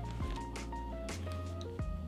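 Background music with a slow beat, deep bass and held notes.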